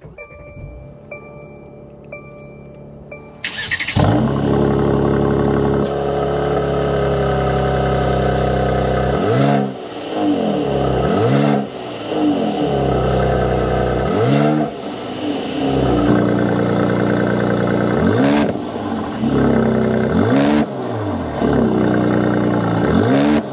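Car warning chime beeping with the ignition on, then the 2023 Mercedes-AMG C43 Coupe's twin-turbo V6 starting with a loud burst about three and a half seconds in. It settles into a steady idle and from about nine seconds on is revved several times, the exhaust note rising and falling with each blip.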